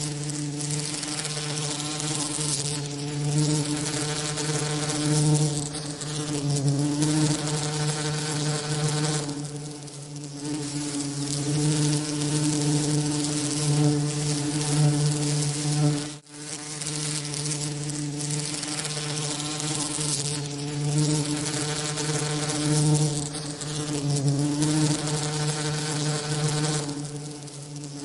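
Bee wings buzzing: a steady drone with many overtones over an even bed of hiss, swelling and easing every few seconds, with a brief sharp drop about sixteen seconds in. A mixed-frequency masking sound for tinnitus.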